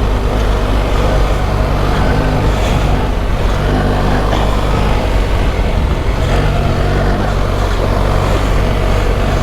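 BMW R 1300 GS Adventure's boxer-twin engine running under load, its revs shifting up and down a few times, over a steady rushing noise.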